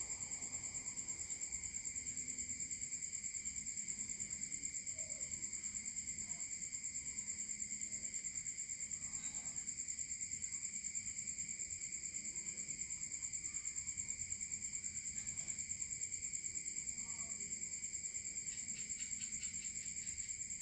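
Small high-speed DC motor spinning a cardboard fan blade, a steady high-pitched whine that holds constant throughout.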